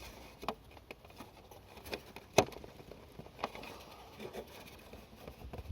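A few short, sharp plastic clicks and taps as a taillight bulb socket with a wire end tucked in it is handled and pushed into place. The loudest click comes about two and a half seconds in.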